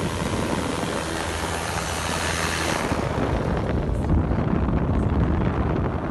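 Backpack propeller engine running steadily and pushing a skier, a dense motor-and-airscrew noise whose high hiss fades about three seconds in.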